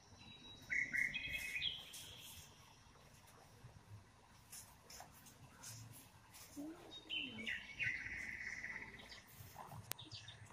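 Birds chirping in two short bursts of high-pitched calls, one about a second in and another about seven seconds in. A single faint click comes near the end.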